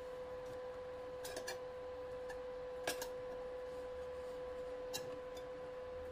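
A steel knife blade and an aluminium pan lid being handled, giving a few light metallic clicks and taps: a pair about a second and a half in, the loudest just before three seconds, another near five seconds. A steady high hum runs underneath.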